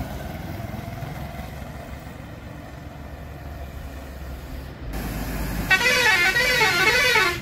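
Low rumble of road traffic, then, over the last two seconds, a loud warbling vehicle horn whose pitch swings up and down a few times a second, in the style of a bus or truck musical horn.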